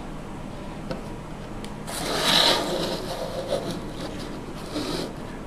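Cardboard box being turned and slid across a tabletop, rubbing and scraping, loudest about two seconds in, with a few smaller scuffs after.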